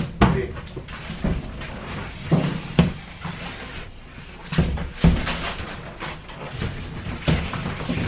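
A large sheet of 5/8-inch CDX plywood being lifted and manoeuvred into place: a string of irregular wooden knocks and thumps as it bumps about, several over a few seconds.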